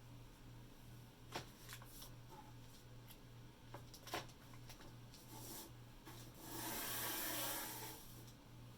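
Handling of packaging and dried shark jaws: a few light clicks and knocks, then about a second and a half of packaging rustling near the end.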